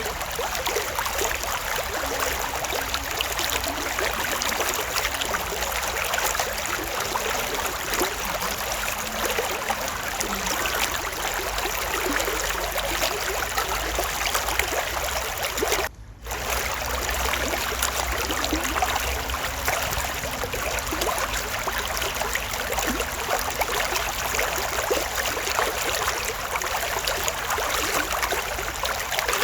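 Creek water flowing and splashing over stones, a steady even rush that cuts out for a split second about halfway through.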